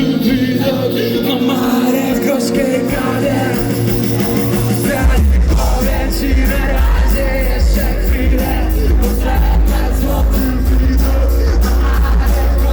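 Live concert music played loud over an arena sound system, with a voice singing over it. About five seconds in, a heavy, deep bass line drops in and carries on.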